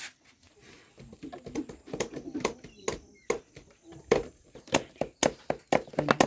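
A series of sharp taps and knocks, irregular at first and coming about twice a second near the end, with faint voices in the background.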